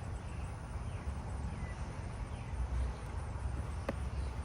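Hands rummaging through the soil of a potato container, feeling for potatoes: a steady rustle over a low rumble, with one sharp click near the end.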